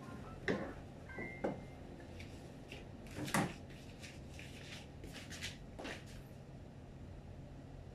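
A cleaver knocking down through bottle gourd onto a plastic cutting board, twice in the first second and a half. A louder single clack follows about three and a half seconds in, and a softer knock comes near six seconds, among light kitchen handling sounds.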